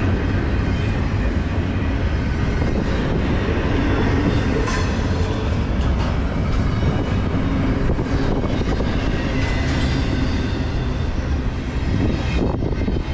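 Empty intermodal well cars of a Norfolk Southern freight train rolling past, a steady rumble of steel wheels on the rails.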